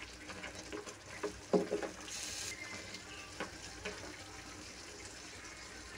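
Thickened crab and tofu soup bubbling in a pan as a utensil stirs it, with scattered light clicks of the utensil against the pan. A brief louder sound comes about a second and a half in.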